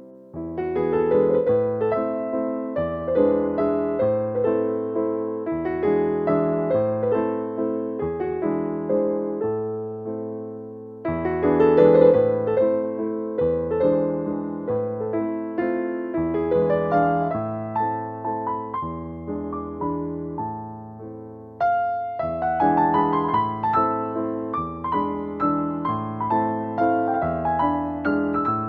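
Background music played on piano or electric piano: struck notes that die away over a steady bass line, with a fresh phrase coming in about a second in, again near 11 seconds and near 21 seconds.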